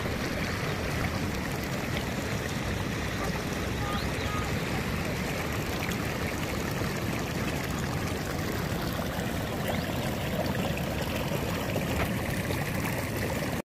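Steady rushing water of a stream, an even, unbroken noise.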